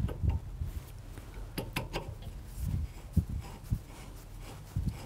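Irregular light metal knocks and clunks of a steel shaft coupler being pushed and twisted onto a steel shaft held in a lathe chuck, a test fit on a shaft still slightly too big for the coupler.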